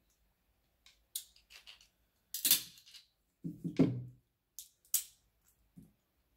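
Close-up eating sounds: cooked seafood shells cracking and clicking as they are picked apart by hand, with chewing and mouth noises between them. A handful of sharp cracks, the loudest a little past halfway.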